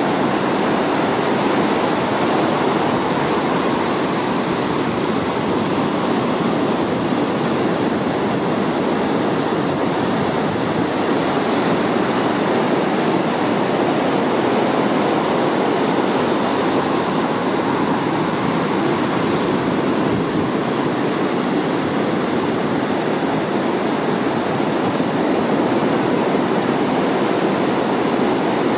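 Ocean surf breaking on a beach: a steady, unbroken wash of waves.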